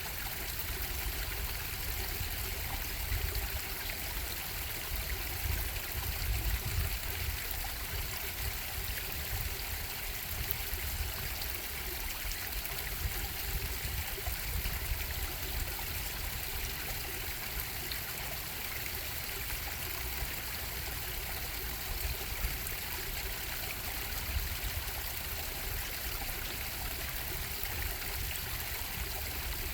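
Stream water bubbling and trickling steadily over rocks, with a low rumble underneath.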